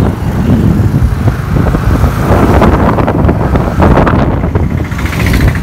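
Yamaha R15's 155 cc single-cylinder engine running through an aftermarket DB-killer silencer while riding at low speed, heard from the saddle with wind rumbling on the microphone.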